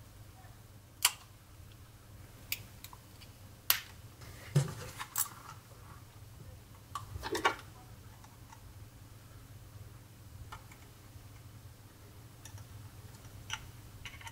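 Metal tweezers clicking and scraping against a computer mouse's plastic underside as its teflon feet are pried off: a dozen or so sharp little clicks at irregular intervals, over a faint low hum.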